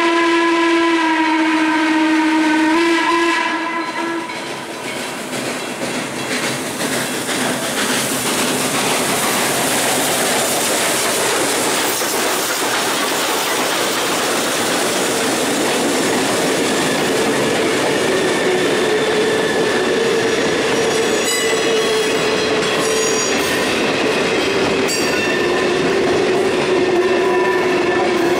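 Steam locomotive No. 1309, a 2-6-6-2 Mallet, blowing a long blast on its steam whistle that cuts off about three and a half seconds in. Then the locomotive working past and a freight train rolling by, with wheels clacking over rail joints. In the second half, steady squealing tones from wheel flanges grinding on the curve.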